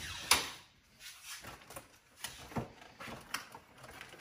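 Pantry shelves being rummaged through: a sharp knock just after the start, then scattered lighter knocks and rustles as boxes and packages are moved about.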